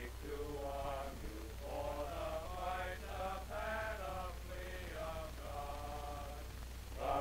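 Men's voices singing a slow hymn in long held notes, with a steady low hum underneath from the old film soundtrack.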